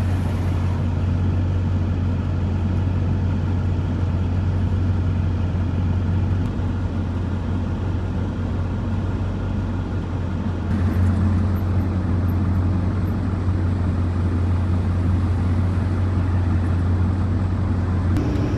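Steady engine drone and road noise of a vehicle driving, heard from inside the cab, growing a little louder about two-thirds of the way through.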